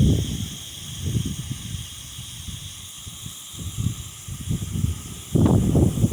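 Wind gusting over the microphone in low, uneven buffets, with a strong gust about five seconds in, over a steady hiss.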